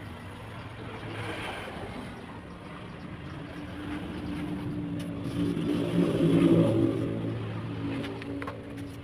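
A motor running with a steady hum, swelling to its loudest about six to seven seconds in and then easing off.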